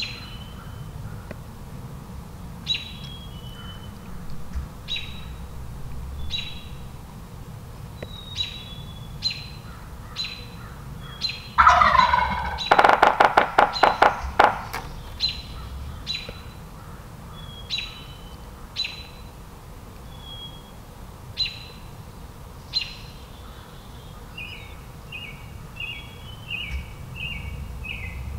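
A wild turkey gobbler gobbles loudly once, close by, a little under halfway through. A small bird chirps about once a second throughout and breaks into a run of quick notes near the end. A strutting tom's low drumming comes in near the end.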